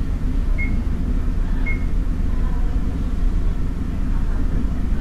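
Steady low running rumble of a Taiwan Railways DRC1000-series diesel railcar at just over 30 km/h, heard from inside the car. Two short high-pitched chirps come about a second apart near the start.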